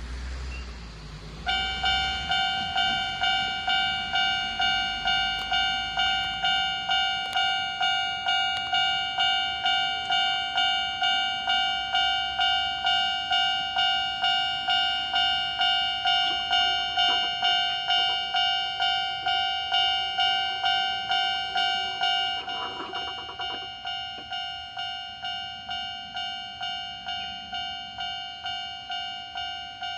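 Japanese railway level-crossing warning bell ringing in a steady, even beat of about two strikes a second, warning of an approaching train. It starts abruptly just after the beginning and becomes quieter about two-thirds of the way through.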